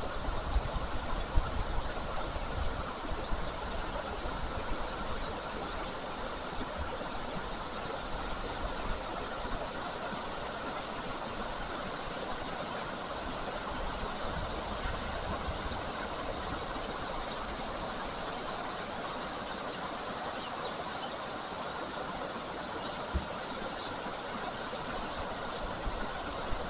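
Steady outdoor rushing noise with short, high bird chirps scattered through it, most of them in the second half.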